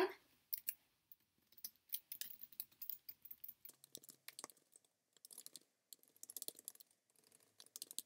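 Faint, irregular clicks of a computer keyboard being typed on, in scattered runs with short gaps.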